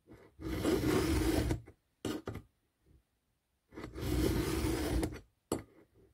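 Round chainsaw file in a file-guide holder drawn across a chain cutter: two long filing strokes of a bit over a second each, with short scrapes between them as the file is brought back.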